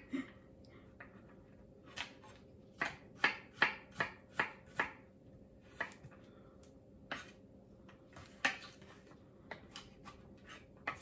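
Kitchen knife chopping garlic cloves on a wooden cutting board: sharp knife-on-board knocks, a quick run of about four a second near the middle, then slower single cuts with pauses.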